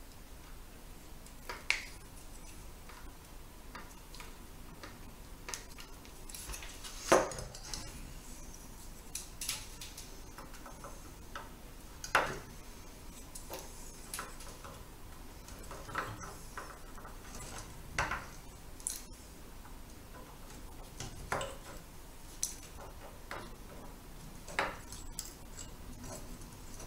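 Small side cutters snipping the excess wire leads of newly soldered capacitors on a TV power supply board. About a dozen sharp snips come at irregular intervals, the loudest about seven and twelve seconds in.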